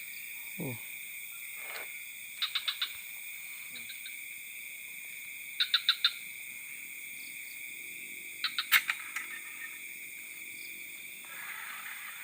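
Night chorus of insects and frogs: a steady high-pitched trilling under everything, and a call of four quick notes that recurs every few seconds. A single sharp click comes about nine seconds in.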